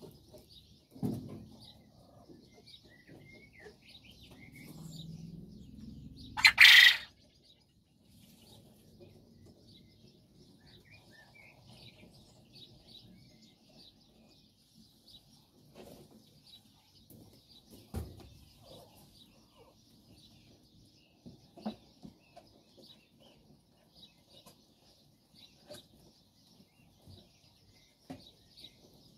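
Japanese quail calling softly with faint chirps and clucks. A loud, short burst of noise comes about six seconds in, and a few soft thumps are scattered through.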